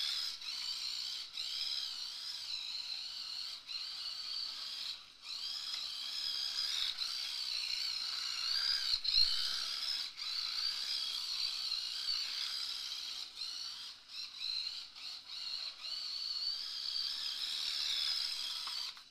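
Small electric motor and gears of an LDR/C Skyline GT-R radio-controlled drift car whining, rising and falling in pitch with the throttle, with brief dips where it lets off.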